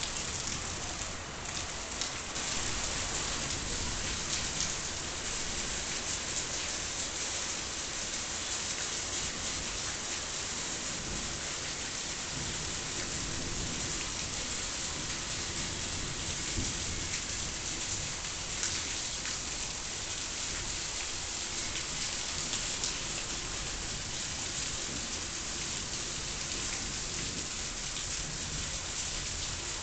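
Heavy rain in a steady downpour, a dense even hiss of drops, with a low rumble of thunder underneath.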